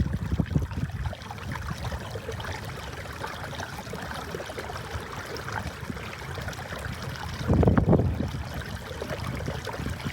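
Water trickling and gurgling along a kayak hull as the kayak is pushed downstream under a Minn Kota 30 lb thrust electric trolling motor at speed 4. Low rumbling bursts come about half a second in and, loudest, near eight seconds.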